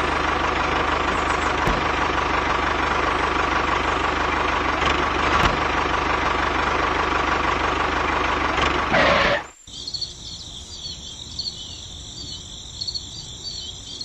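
A tractor engine running steadily and loudly, cutting off suddenly about nine and a half seconds in. After that, high, rhythmic chirping of crickets.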